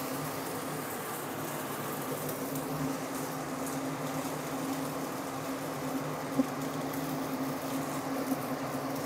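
Steady hum of a kitchen extractor fan, with an even low tone, and a single light click about six seconds in.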